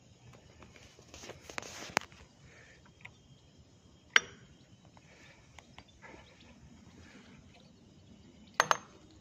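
A few sharp metallic clicks and clinks on a stopped Crossley BHC65 gas engine, from a small spring-hinged metal lid being flicked and snapping shut by hand: a cluster with some rustling about a second in, one clear click about four seconds in, and a quick double click near the end.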